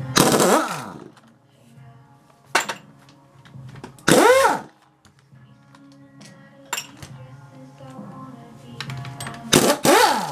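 Impact wrench with a socket on a long extension spinning transmission case bolts loose, in three short runs whose motor pitch rises and then falls: just after the start, about four seconds in and near the end. Sharp clicks of metal parts sound between the runs.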